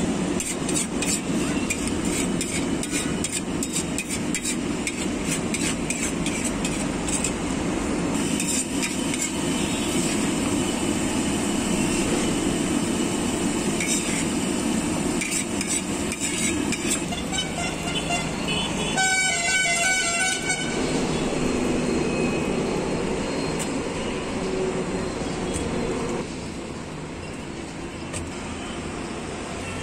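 Metal spatula scraping and clicking on a large flat griddle (tawa), rapid clicks mostly in the first several seconds, over steady outdoor background noise. A vehicle horn sounds once, for about a second and a half, around two-thirds of the way through.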